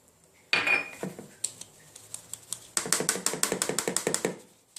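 Icing sugar being sifted through a sieve: a knock about half a second in, scattered light clicks, then a fast run of sharp clicks, about ten a second, from the sieve being worked over the bowl.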